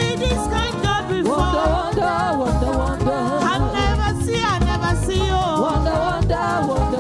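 Praise and worship band playing an upbeat gospel song with a steady bass-and-drum beat, with voices singing over it.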